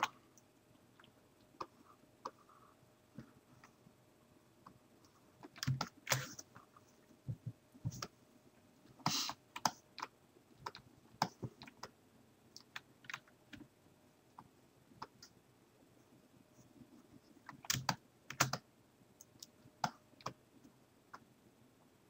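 Faint, scattered clicks of computer keys at irregular intervals, with a few bunched, louder clicks here and there.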